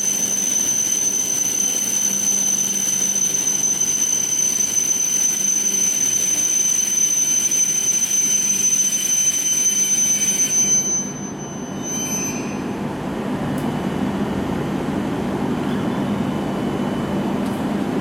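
E7 series Shinkansen train at the platform: a steady high-pitched electrical whine with a low hum underneath. About two-thirds of the way in the whine stops abruptly and a broader, lower rushing noise takes over.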